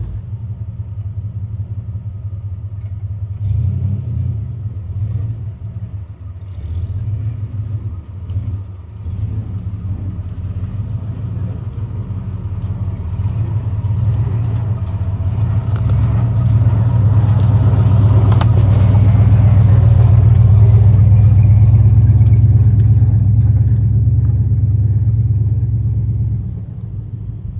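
An old Jeep's engine running under load as it crawls over rock, a steady low drone that grows louder about halfway through and eases off near the end. There are knocks and clatter around the middle.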